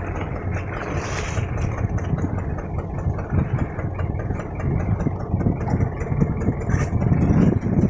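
Fishing boat's engine idling, a steady low rumble.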